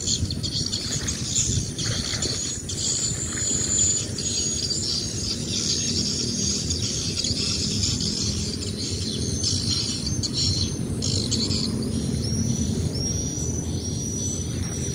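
Chirping of small wild creatures over a flooded field: a dense high chatter, with short repeated calls at about two a second near the end. A low steady rumble lies beneath.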